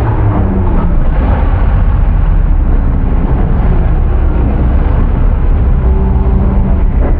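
Loud tube-chassis rock buggy engine revving unevenly while climbing a steep rock ledge, its pitch rising and falling with repeated stabs of throttle.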